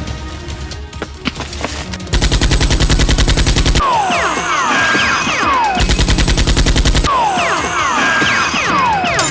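Automatic gunfire sound effects: two bursts of rapid, evenly spaced shots starting about two seconds in, each followed by a flurry of overlapping whistles falling in pitch. Background music with a low beat runs before the first burst.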